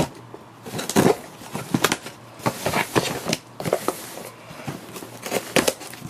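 Packaging being handled by hand: an irregular run of knocks, taps and scraping rustles of cardboard and wrapping.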